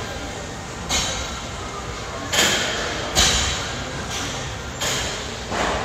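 A set of presses on a plate-loaded shoulder press machine: about five short, sharp bursts of noise at uneven spacing, each dying away within half a second, over a steady gym background.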